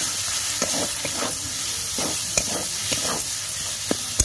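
Tomatoes and spice masala sizzling in hot oil in a metal kadai while a metal spatula stirs them, scraping and knocking against the pan several times a second.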